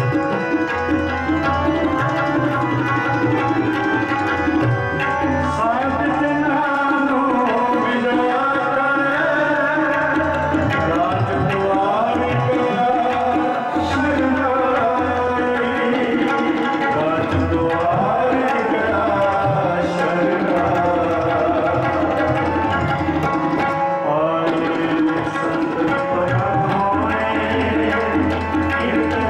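Sikh kirtan: tabla playing steadily under a sung devotional melody with harmonium, the voice gliding between notes.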